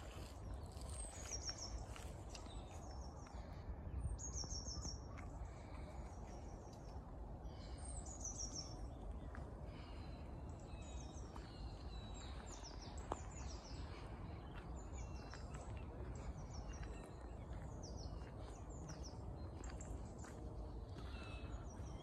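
Small songbirds calling in winter woodland: high, thin notes in short falling runs, repeated every few seconds, over a steady low rumble.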